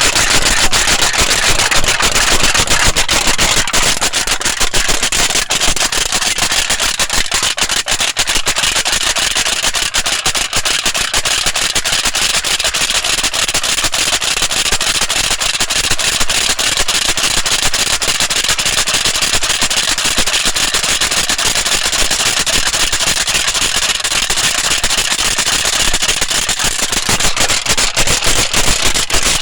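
Tin foil being crinkled continuously: a loud, dense, irregular crackle.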